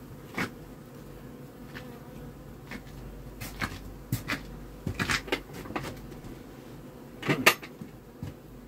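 Honeybees humming steadily from the stacked hives, with scattered clicks and knocks; the loudest knocks come in a quick pair about seven and a half seconds in.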